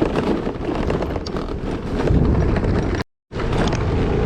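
Motor scooter running over a rough dirt road, with wind buffeting the microphone and scattered knocks and rattles from the bumps. The sound cuts out completely for a moment about three seconds in, then the engine comes back steadier.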